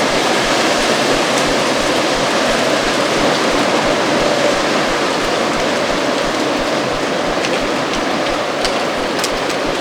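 Strong autumn wind blowing steadily, with dry leaves rustling and skittering on the ground; a few light crackles from the leaves come near the end.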